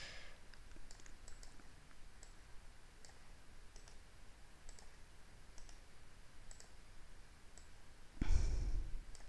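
Faint computer mouse clicks, about a dozen scattered irregularly, as the cursor right-clicks and picks items from a menu. Near the end comes a brief, louder rush of noise.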